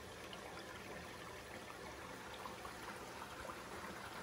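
Faint, steady rush and trickle of water spilling into an aquarium's overflow boxes, driven by the newly started return pumps running at full flow.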